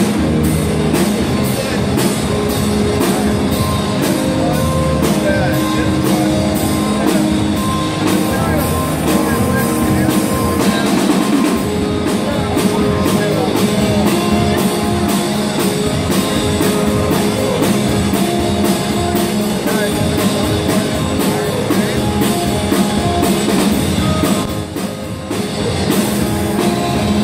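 Live rock band playing: drum kit keeping a steady beat under guitar, with some singing. The music thins briefly near the end.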